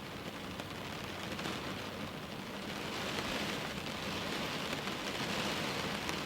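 Steady rain falling at a window, a dense even hiss that grows a little louder about halfway through.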